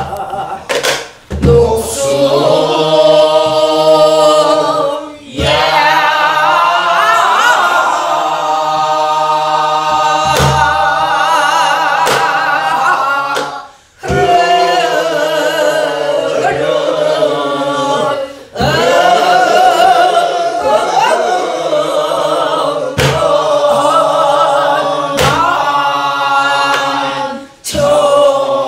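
Korean Namdo folk song sung in long held notes with a wide, wavering vibrato, broken by short pauses for breath. Occasional strokes of a buk barrel drum mark the beat.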